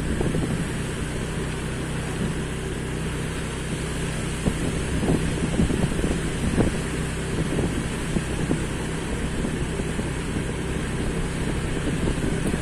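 A vehicle's engine running at a steady speed while travelling along a road, with wind buffeting the microphone.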